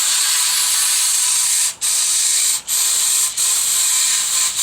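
Aerosol can of brake cleaner spraying in a loud, steady hiss, broken by a few brief pauses, flushing metal chips out of a freshly tapped hole in a handlebar end.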